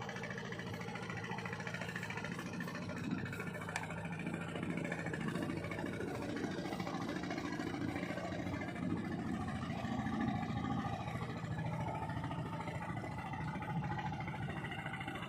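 Fishing boat's engine running steadily, an even low drone.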